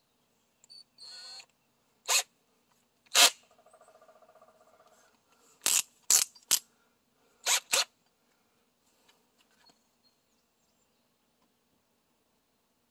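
Clicks and knocks of a Bauer cordless drill being handled while a drill bit is fitted into its keyless chuck, with a short soft rattling buzz a few seconds in. The drill motor does not run.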